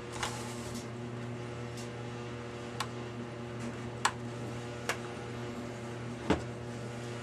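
Hard plastic console trim being handled while a rocker switch is test-fitted in its cut hole: a handful of separate sharp clicks and knocks over a steady low hum.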